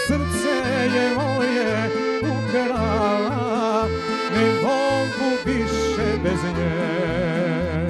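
Live Serbian folk band playing, with an accordion carrying the melody over violins, bass guitar and drums.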